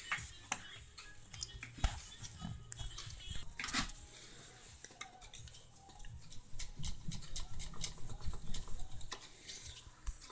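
Irregular light metallic clinks and taps with some handling rustle, as metal tools and parts are handled around an engine and gearbox.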